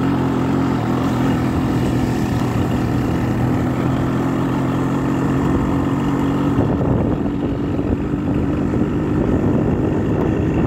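Vehicle engine running at a steady speed over road rumble. About two-thirds of the way through the steady engine note drops out, leaving a rougher rumble.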